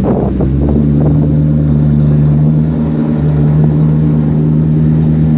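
Maserati engine and exhaust idling with a steady, even note that settles about half a second in and holds level.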